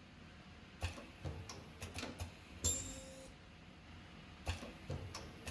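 Automatic nylon zipper bottom-stop welding machine cycling: mechanical clicks and knocks as the zipper is moved into position, then its ultrasonic welding horn fires once for under a second with a loud, high-pitched whine, followed by more clicks.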